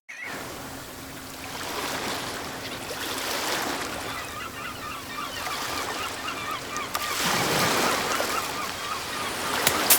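Waves washing on the shore, with a flock of waterbirds calling over and over in short, quick calls.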